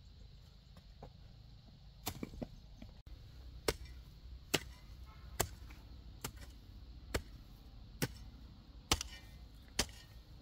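Hand hoe chopping into clumpy soil: a sharp strike roughly once a second, starting about two seconds in, about nine strokes in all.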